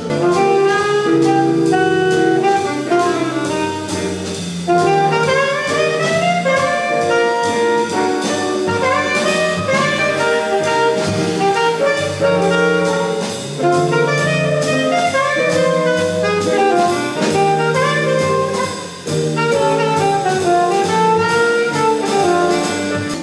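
Jazz band instrumental break: a saxophone plays a moving melody over a bass line and a drum kit keeping time on cymbals.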